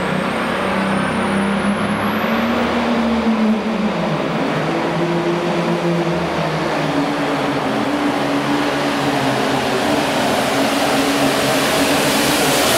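Case IH Super Farm pulling tractor's turbocharged diesel engine running hard under full load, pulling the weight sled down the dirt track. A high whine climbs in pitch over the first couple of seconds, and the engine noise builds louder toward the end.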